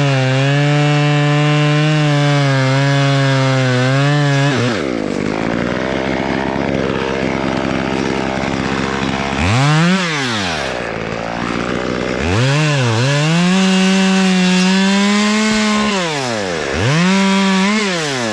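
Two-stroke chainsaw running at high speed, revving up and dropping back several times, with noisier stretches in between.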